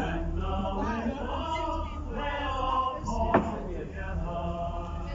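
Men's voices singing together like a choir, over a steady low rumble, with a single sharp knock about three and a half seconds in.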